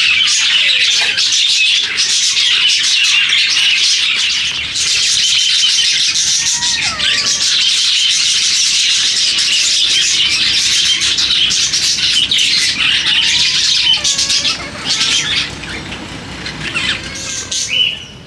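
A flock of small pet parrots, budgerigars and lovebirds, chirping and chattering densely and continuously, with a few sliding whistled notes. The chatter thins out in the last few seconds.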